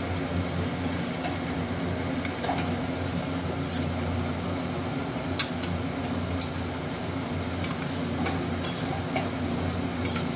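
Metal spatula stirring chicken pieces through thick masala in a metal kadai, clinking and scraping against the pan about once a second over a steady low hum.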